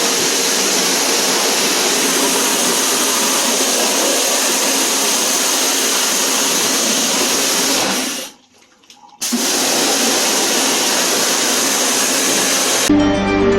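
Steady rushing hiss of a high-pressure water spray washing disassembled air conditioner parts. The spray stops for about a second past the middle, then starts again.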